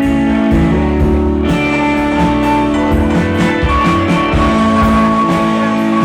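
Live rock band playing an instrumental passage: guitar chords held over steady drum hits, with no vocals.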